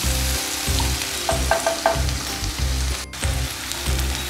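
Chopped onions sizzling in hot ghee in a pan as they are stirred, with a few quick metallic taps about a second and a half in.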